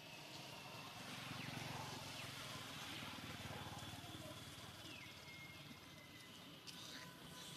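Faint outdoor ambience with a low rumble. About five seconds in, a single high animal call falls in pitch and then holds steady for about a second.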